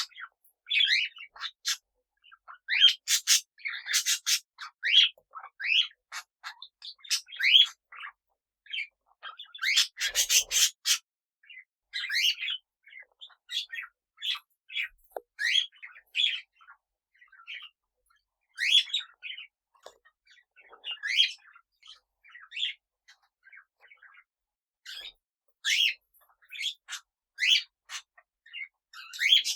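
Small pet parrots chirping: many short, separate calls with brief gaps between them, and one louder, harsher squawk about ten seconds in.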